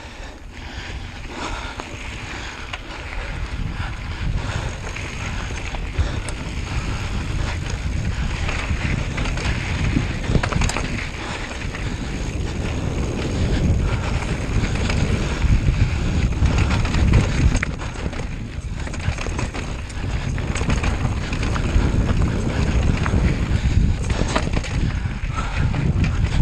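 Steady wind buffeting the microphone over a low rumble of movement during a descent, with a few short clicks and rattles.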